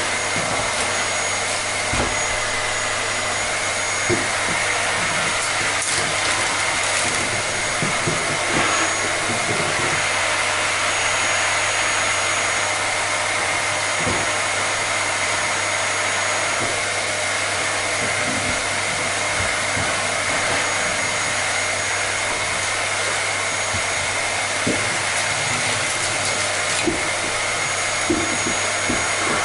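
Vacuum cleaner running steadily: a constant rush of air with a steady high whine and a low hum under it, with a few faint light knocks scattered through.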